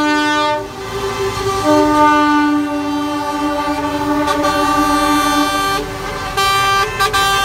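Horns of passing tractor-unit trucks in a convoy, long held blasts from several at once, breaking off briefly about half a second in and ending in short toots near the end, over the low rumble of the trucks' diesel engines.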